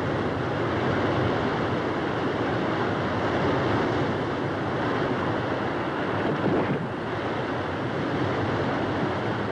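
Steady rushing, rumbling noise of a bridge collapsing in a cloud of dust and debris, as a film sound effect.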